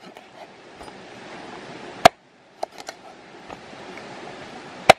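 Two sharp chopping strikes, a blade coming down on a chopping block: one about two seconds in and one near the end, with a few lighter knocks just after the first. A steady hiss runs underneath.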